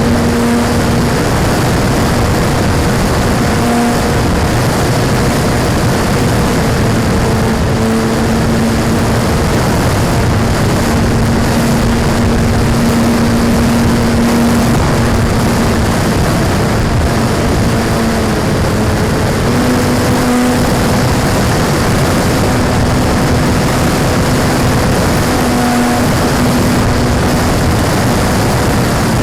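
Radio-controlled model airplane's motor and propeller buzzing steadily in flight, the pitch dipping slightly and rising again with throttle changes, over a constant rushing noise.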